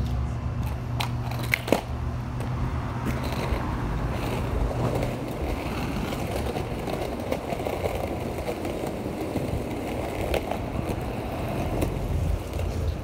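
Skateboard wheels rolling over rough asphalt and concrete, a steady gritty rumble with a few sharp clicks.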